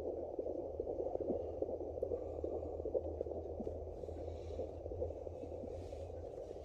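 Handheld fetal doppler's speaker giving a steady hiss and crackle with a low hum and scratchy ticks as the probe is moved over gel on a pregnant belly, searching for the baby's heartbeat.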